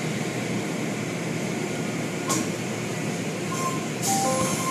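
Automatic tunnel car wash running, heard from inside the car: a steady wash of water and machinery noise as the foam applicator and cloth strips work over the vehicle. A sharp slap comes about two seconds in and a burst of spray hiss near the end, while a simple tune of single notes starts up.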